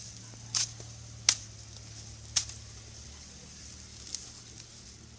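Asian elephant chewing green fodder: three sharp crunches in the first two and a half seconds, then a fainter one.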